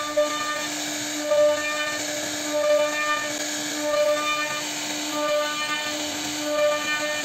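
CNC router spindle whining steadily while its bit cuts a row of round pockets into a wooden panel. A higher whistling tone swells about every 1.3 s as the bit bites into each pocket.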